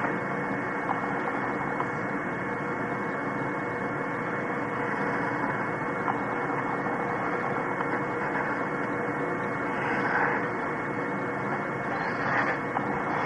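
Steady electrical hum with a hiss, unchanging apart from a slight swell about ten seconds in.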